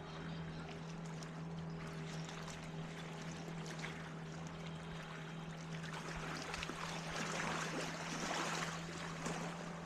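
Water lapping and trickling against a kayak hull, swelling for a few seconds in the latter half, over a steady low hum, with scattered small clicks.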